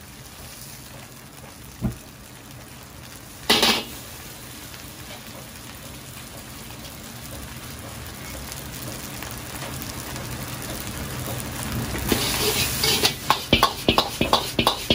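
Fried rice with garlic frying in a steel wok over a gas burner: a steady hiss that slowly builds, with a single knock about two seconds in and a short loud burst just before four seconds. Near the end the ladle starts striking the wok in rapid strokes as the rice is tossed.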